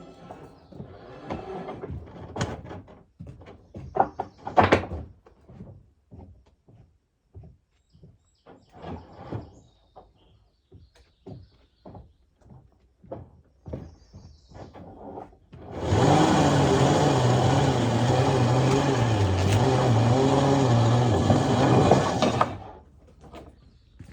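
A series of knocks and clunks, then a motor runs loudly for about six seconds, its low pitch wavering up and down, and cuts off abruptly.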